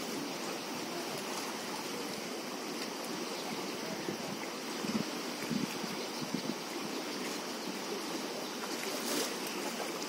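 A muddy river swollen by monsoon flooding, rushing steadily.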